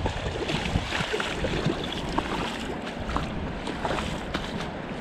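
Wind buffeting the microphone over the steady rush of a fast-flowing river running high after rain.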